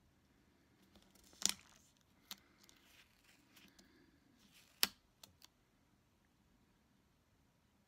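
Faint handling of washi tape on a paper planner page as the strip is laid and pressed down: a few sharp taps and clicks, two louder ones about three seconds apart, with light rustling between.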